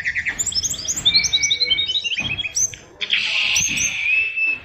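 Brown-chested jungle flycatcher (SRDC) singing a loud, fast, varied song of rapidly repeated chirps and trills, packed with learned mimicry phrases, with a short pause about three seconds in.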